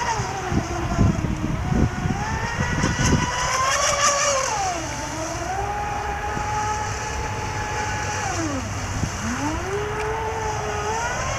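An RC speedboat's Leopard 4072 brushless motor whining at speed, its pitch climbing and falling with the throttle: it holds steady through the middle, dips sharply about nine seconds in, then climbs again. Low thumps fill the first few seconds.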